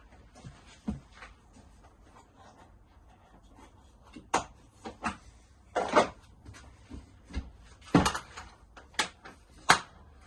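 Plastic clicks and knocks from handling a stacking rolling toolbox: trays and boxes being unclipped and set down, with a short scrape about six seconds in.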